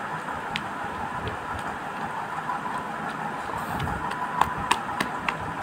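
A hand squishing and mixing thick, wet pakora batter with mango pieces in a glass bowl, with sharp clicks against the glass that come more often in the second half, over a steady hiss.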